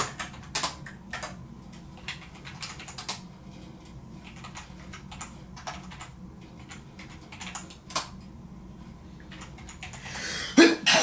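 Typing on a computer keyboard: irregular keystrokes with short pauses. Near the end, a loud breath from the typist.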